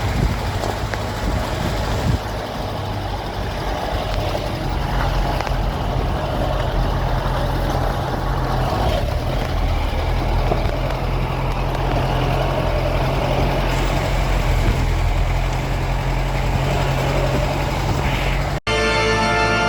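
A motor vehicle running steadily: a constant low engine hum under road and wind noise, cut off abruptly near the end.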